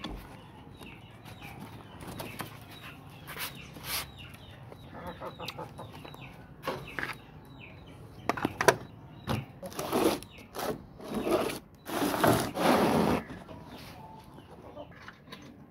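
Chickens clucking, mixed with knocks from a feed plate and a wire cage being handled and a cloth cover being rustled, the loudest and busiest handling about ten to thirteen seconds in.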